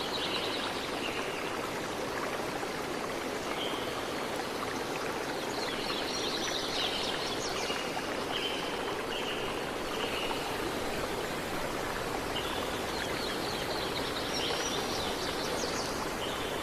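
Steady hiss of falling rain, with birds calling over it in short repeated notes and trills.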